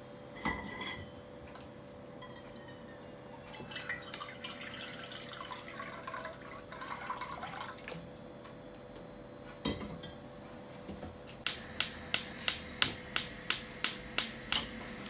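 Milk pouring from a carton into an enamel saucepan, then a knock. Near the end, a gas hob's spark igniter clicking about three times a second as the burner is lit.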